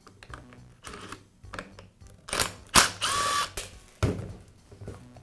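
Cordless driver running briefly, for under a second about three seconds in, to back out the screws of an angle grinder's rear housing. Around it are sharp clicks and clunks of the driver and the grinder being handled on a metal bench.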